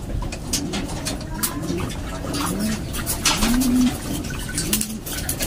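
Racing pigeons cooing, a low rising-and-falling coo about once a second. Sharp splashes of water come as a pigeon is bathed by hand in a steel basin.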